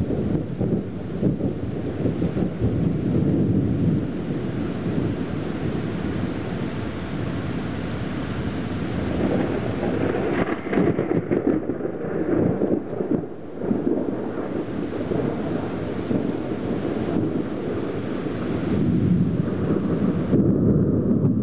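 Thunderstorm: a long, continuous roll of thunder rumbles and swells, over the steady hiss of heavy rain. The rumble dips briefly about two-thirds of the way through, then builds again.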